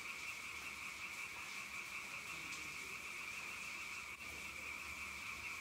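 Steady, high-pitched night chorus of calling frogs and insects.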